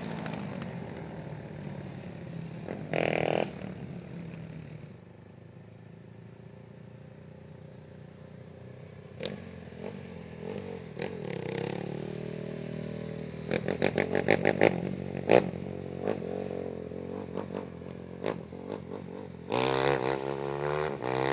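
Racing ATV engines running and revving on a dirt track, with a loud burst of revving about three seconds in and again near the end. A run of sharp clattering knocks comes about two-thirds of the way through.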